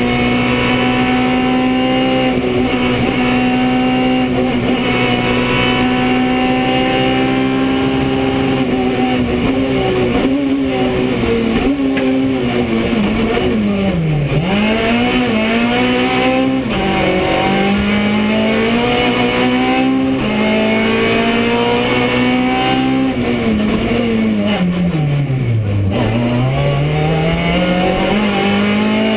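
Rally car's engine heard from inside the cockpit, held at high revs on a flat-out run. Twice the engine note drops steeply, once about halfway through and once near the end, then climbs back up through the gear changes as the car slows for corners and accelerates out again.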